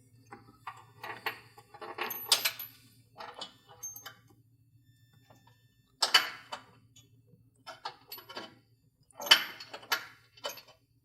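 Metal clinking, scraping and knocking as a long bolt is worked against the steel winch tray and truck frame while feeding it through the hole, in irregular bursts with the loudest knocks about two, six and nine seconds in.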